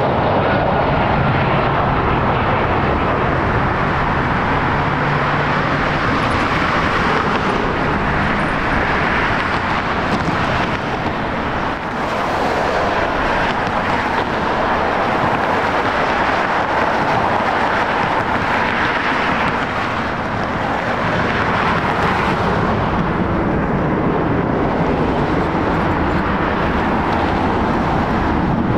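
Jet airliner engines running, a continuous steady noise: first a Boeing 767 freighter landing, then airliners taxiing on idle thrust. The level dips briefly about twelve seconds in.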